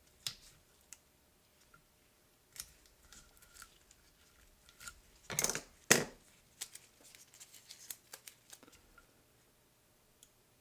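Vinyl masking tape being handled and cut by hand, with scattered small clicks and two louder sharp snips about five and a half to six seconds in.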